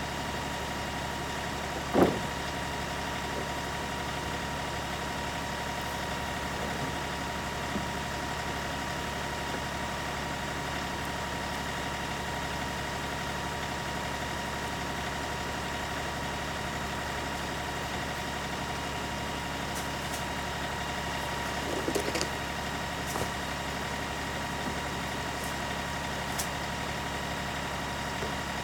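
LS XR3135 compact tractor's diesel engine running steadily at a constant speed. A sharp metallic clunk comes about two seconds in and a few lighter knocks near the end.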